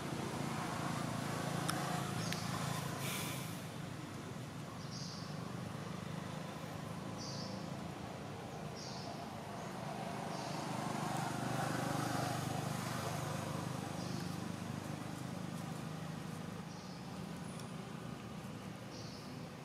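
Steady low rumble of distant vehicle traffic, swelling once about halfway through as something passes. A short high chirp repeats every second or two above it.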